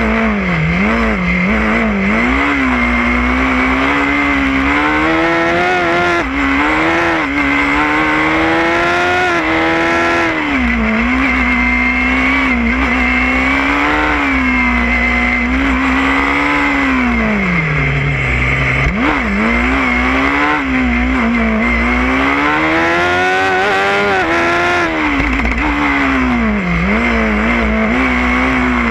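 Formula SAE race car engine heard from onboard, its pitch constantly climbing and falling as the car accelerates out of and slows into the cone-marked corners. The pitch drops lowest about eighteen seconds in, then climbs again.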